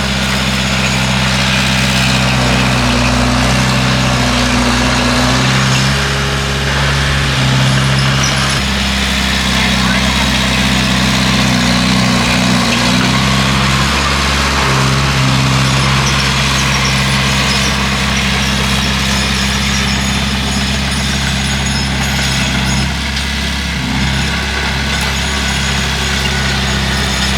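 Bulldozer's diesel engine running steadily, its pitch dipping and shifting briefly a few times.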